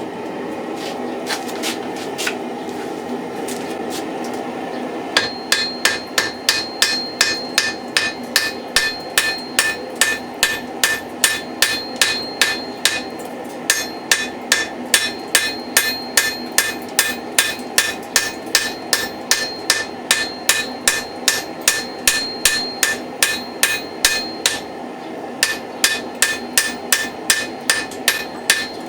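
Hammer blows on hot steel over an anvil, about three ringing strikes a second with two short pauses, forge welding mild steel cheeks onto a steel axe head. The forge runs with a steady rush underneath, alone for the first five seconds.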